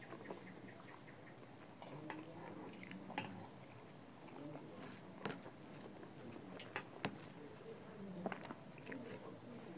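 A person chewing a mouthful of chicken curry and rice, eaten by hand, with soft wet mouth sounds and a few sharp clicks and smacks, the loudest about seven seconds in.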